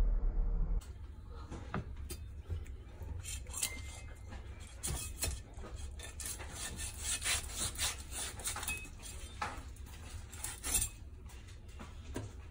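A low hum cuts off about a second in. Then a broad knife blade scrapes the scales off a whole raw sea mullet on a wooden cutting board, in a run of short, irregular, raspy strokes.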